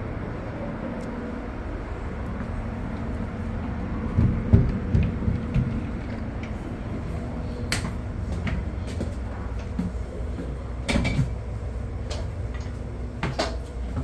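Steady low hum of a train standing at a platform. It is broken by a cluster of low knocks about four seconds in, then sharp clicks and knocks near eight, eleven and thirteen seconds, from the gangway doors and floor plates as someone walks through between cars.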